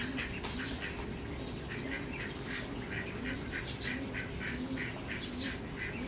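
Birds calling: a rapid run of short, repeated calls, about four a second, clearer after a second and a half, with softer low calls underneath.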